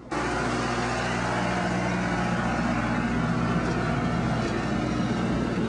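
Train engine running steadily, cutting in suddenly just after the start, with a steady low hum under a broad rumble.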